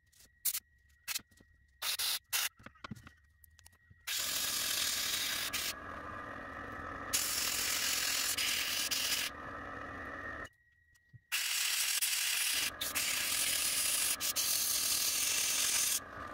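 Airbrush spraying paint onto a small wooden lipless crankbait: a run of short bursts at first, then a long steady hiss of spraying with a short break about ten seconds in.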